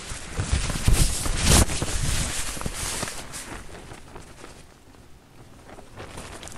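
Wind gusting on the microphone: a rough low buffeting that builds to its loudest about one to two seconds in and dies away, with a few irregular knocks and rustles.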